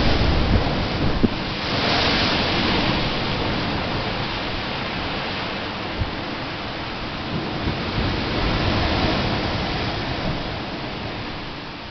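Heavy surf of a very high spring tide breaking against the seawall and washing over the promenade: a continuous crashing roar of waves, loudest near the start and slowly easing toward the end.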